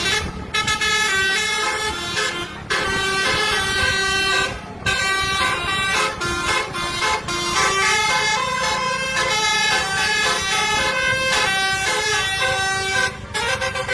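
Bus telolet horn playing a fast melody of stepped, held notes, with short breaks about three and five seconds in and again near the end.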